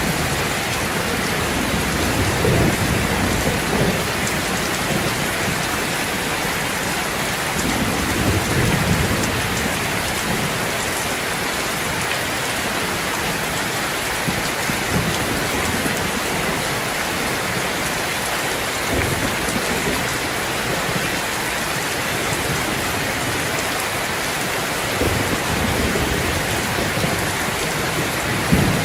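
Steady rain falling, an even hiss without a break. A few low rumbling swells come and go under it, near the start, about a third of the way in and near the end, like distant thunder.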